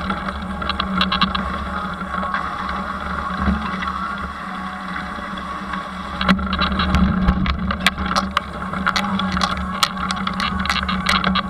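Road bike with 700c wheels and no suspension rolling along a dirt path with a steady hum. From about six seconds in, frequent sharp rattles and knocks sound as the rigid bike jolts over rough, broken ground.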